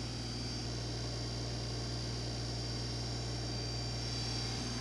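Steady low electrical hum with a faint high whine and hiss. It continues unchanged under the narration, so it is background noise of the recording.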